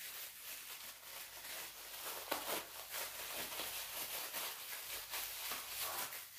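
Thin plastic bag crinkling and rustling as hands squeeze a soft ball of dough down into one corner of it, an irregular rustle with a few sharper crackles.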